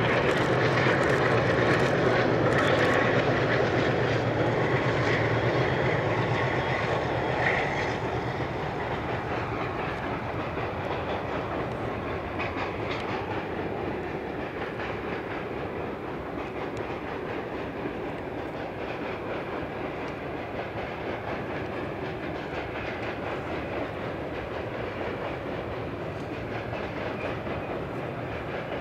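A long freight train of pipe-loaded wagons rolls across a steel viaduct, hauled by two MLW diesel-electric locomotives. The locomotives' engine drone is loudest at first and fades after about eight seconds as they pull away. What remains is the steady rolling noise of the wagons on the bridge.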